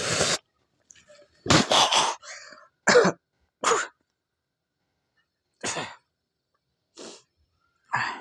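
A man coughing hard in a string of about seven separate coughs with pauses between them, the later ones mostly quieter: the throat-burn of a swig of neat vodka.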